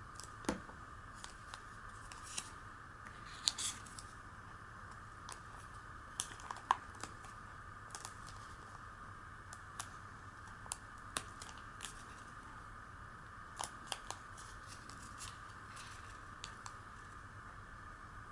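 Folded origami paper being handled, pressed and smoothed by hand: scattered short paper rustles and clicks at irregular intervals over a steady faint background hiss.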